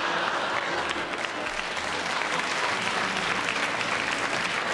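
Studio audience laughing and applauding, a steady wave of clapping that holds through the whole stretch.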